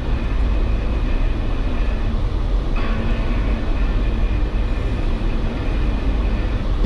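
Jeep Wrangler's engine and drivetrain running at low speed, a steady low rumble heard from inside the vehicle.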